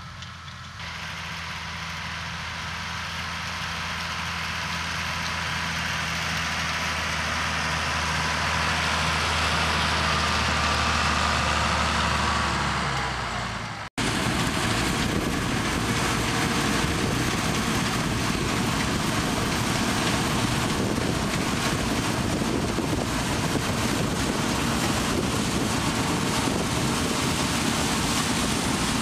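A tractor engine working under load as it pulls a tillage implement across stubble, its steady drone growing louder as it draws nearer. About halfway through, the sound cuts to a combine harvester cutting and threshing grain close by, a dense, steady machine noise.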